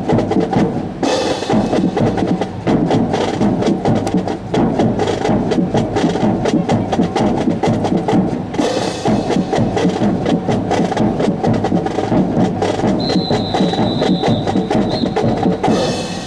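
Military drum corps playing a fast snare drum cadence, a dense run of rapid sharp strokes that keeps time for a rifle drill team.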